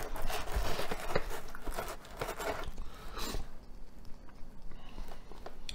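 A man chewing and biting into a sandwich close to the microphone. Crackly chewing noises run for about the first three and a half seconds, then turn quieter with a few small clicks.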